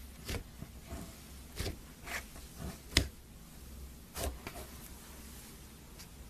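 Slime being squeezed and pressed by hand: an irregular string of short squelches and pops, about eight of them, the loudest about three seconds in.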